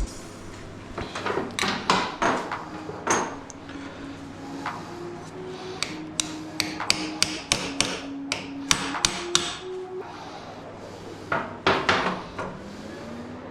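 Hand-tool work on metal: a series of sharp knocks and taps in irregular clusters, like a hammer or wrench striking. Quiet background music with a slow stepping melody plays underneath.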